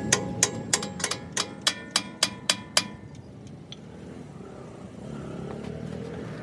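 Hammer blows on ringing steel, about three or four a second, with each strike leaving a metallic ring; the hammering stops about three seconds in, leaving faint workshop background.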